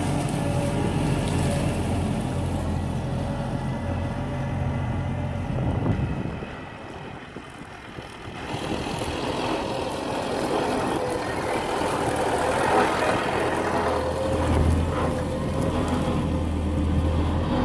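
MTZ 952.3 tractor's diesel engine running steadily as it pulls a log-loaded forestry trailer, dropping away for a couple of seconds in the middle and then coming back louder.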